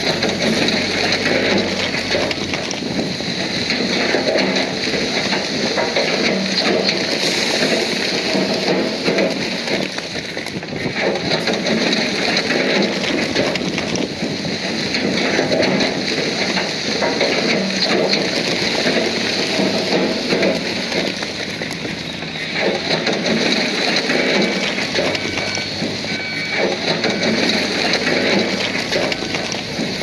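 Bulldozer working, pushing rock and dirt: a dense, steady grinding crackle that swells and eases every few seconds.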